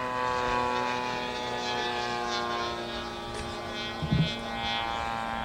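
Radio-controlled model airplane engine running steadily, a continuous buzzing drone. A brief low thump about four seconds in.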